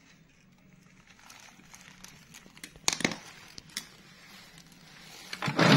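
Handling noises at a workbench: sharp clicks and a short crackling rustle about three seconds in, a single click a moment later, and a louder crackling rustle near the end.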